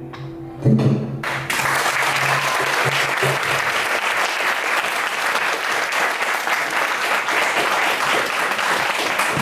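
The song's last struck chord on acoustic guitar and cajon rings out, then audience applause starts about a second and a half in and stays steady.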